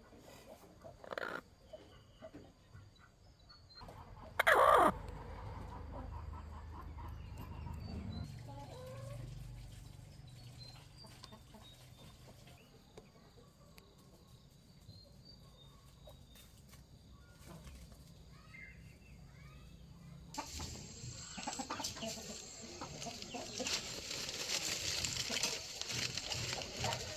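Chickens clucking, with one brief loud sound about four and a half seconds in and a steady hiss that comes in about twenty seconds in.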